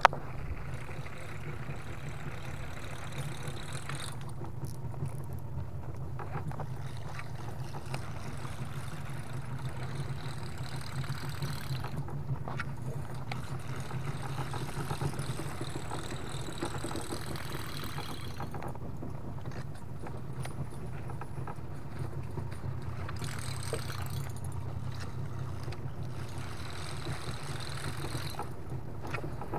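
Small boat's engine running steadily, a constant low hum that holds level throughout.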